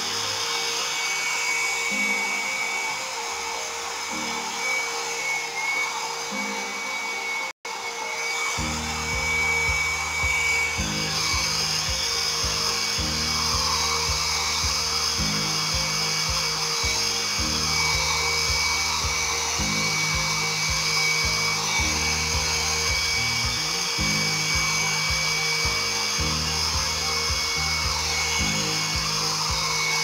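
Nova handheld hair dryer blowing steadily, a constant whine over its rushing air, with background music under it. The sound cuts out for an instant about seven and a half seconds in.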